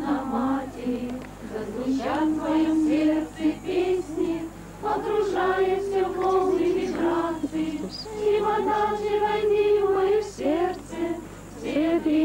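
Several people singing a song together, women's voices leading, in long held notes with short breaks between phrases.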